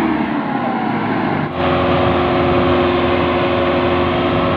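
Massey Ferguson 375 tractor's diesel engine running hard, straining to pull a heavily loaded sugarcane trolley. About a second and a half in, the engine note jumps up and then holds steady.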